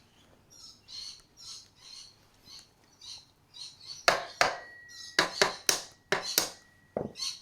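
A tool working a small part loose on a Stihl 009L chainsaw: soft scraping strokes, about two a second, then, about four seconds in, louder sharp clicks and scrapes.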